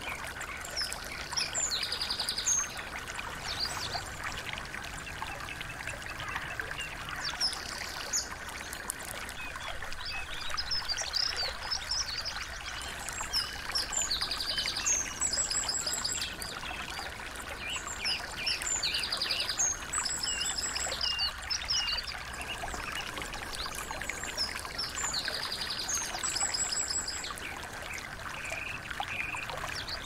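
Small songbirds singing: high, fast-trilled phrases of rapidly repeated notes mixed with short chirps, coming in bursts every five or six seconds. Under them runs the steady trickle of a small stream.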